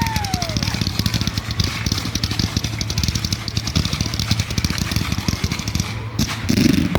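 Fireworks crackling: a dense, continuous stream of rapid small pops that thins out near the end, with a falling whistle dying away in the first half second.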